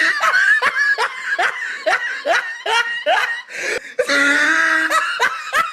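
A woman laughing in quick rising bursts, about two a second, then a longer drawn-out voice sound near the end.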